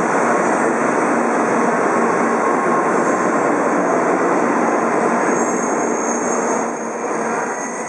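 N700A Shinkansen bullet train departing, its cars rushing past close by with a loud, steady roll of wheels and air, and a thin high whine coming in about five seconds in.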